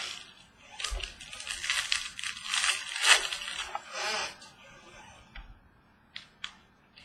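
Trading-card pack wrapper torn open and crinkled for about three seconds, followed by a few light clicks and rustles as the cards are handled.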